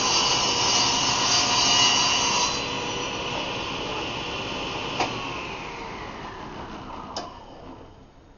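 Table saw crosscutting a piece of hardwood-size stock for the handle, loudest for the first two and a half seconds while the blade is in the wood, then running free. A click about five seconds in, after which the blade winds down with a falling pitch, and a knock near the end.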